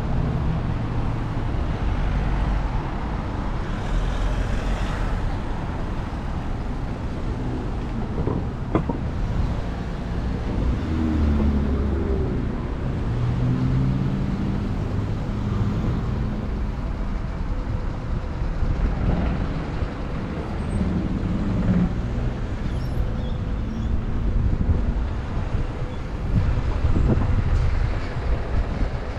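City road traffic: cars and a truck driving past, with steady tyre and engine noise and louder engine passes about a third of the way in and again around two-thirds of the way in.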